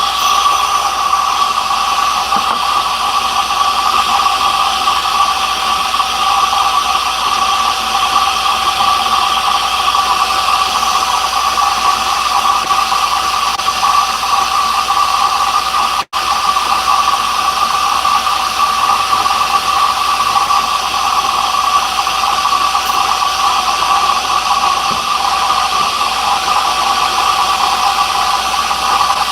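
Table saw running steadily at speed, a constant whine over a hiss, with no change in load.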